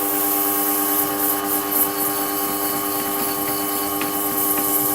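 Motor of a flat sharpening hone humming steadily while a convex scissor blade is ground against its 30 micron abrasive plate, making a continuous hissing scrape. The grinding is taking a nick out of the blade.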